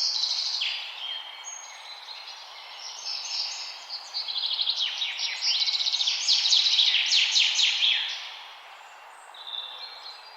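Several small birds singing at once, with overlapping rapid chirps, trills and short whistles over a steady background hiss; the singing is densest in the middle and thins out toward the end.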